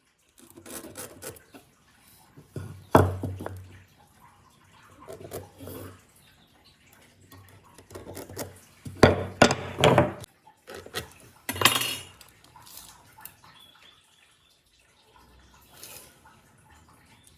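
Irregular clattering and knocking of hard objects being handled and set down. The loudest knocks come about three seconds in and in a run between nine and ten seconds, with quieter handling sounds between.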